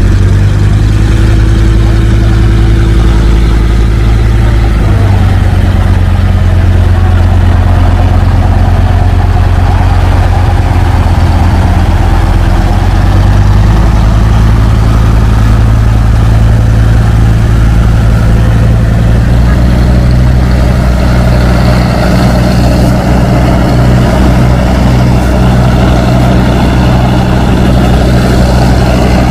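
Boat diesel engines running with a steady low drone that shifts in pitch a few times, more than one engine sounding at once.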